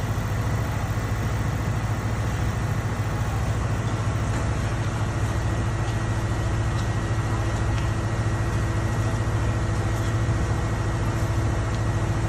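A large engine running steadily: an even, low drone that holds throughout.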